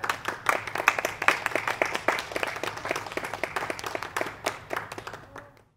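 Applause from a small group: dense, irregular hand clapping that cuts off abruptly near the end.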